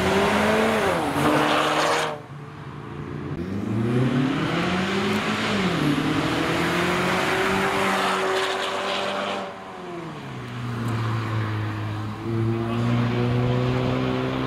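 Ford Mustang accelerating away: the engine note climbs and drops back twice, then holds a steady pitch before falling to a lower, steady note as the car drives off.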